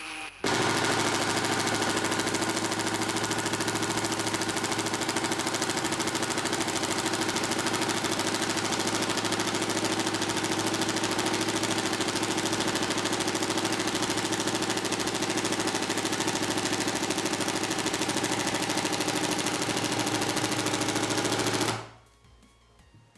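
Ryobi P238 brushless 18-volt impact driver hammering steadily in first gear for about 21 seconds, straining under full pressure to sink a 3-inch sheetrock screw. The rapid rattle of its impact mechanism starts about half a second in and cuts off suddenly near the end.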